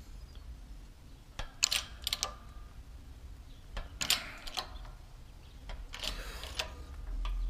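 Hydraulic shop press being pumped against an AK gas block held in a steel press jig: scattered light metallic clicks and knocks in small clusters while pressure builds and the block has not yet broken loose.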